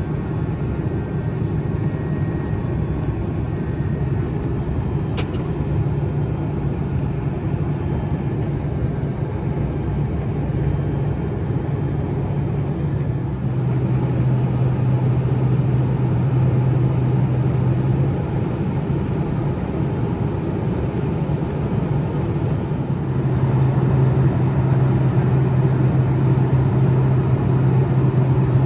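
Cabin noise of a Cessna Citation Sovereign climbing after takeoff: a steady rush of airflow over a low drone from its two Pratt & Whitney Canada PW306C turbofans. The drone steps louder about halfway through and again near the end. There is a single brief click about five seconds in.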